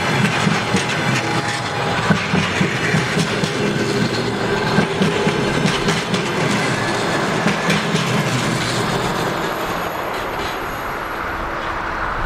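Passenger train rolling past at speed: a steady rumble with a regular clickety-clack of steel wheels over rail joints. The clatter thins out after the last vehicle goes by, about halfway through, and the rumble carries on a little quieter as the train draws away.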